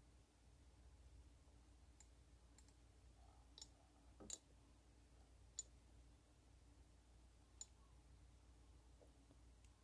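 Faint, scattered small clicks of metal fishing pliers being handled, about six over several seconds, the loudest a little past four seconds in, over near-silent room tone.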